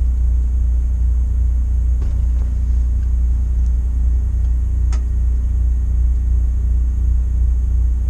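Steady low rumble, with a few faint light clicks about two, three and five seconds in.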